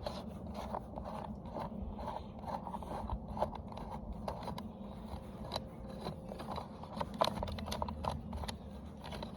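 Irregular small clicks, taps and scrapes of a top-handle chainsaw's plastic and metal parts being handled and worked on by hand, over a faint steady low hum.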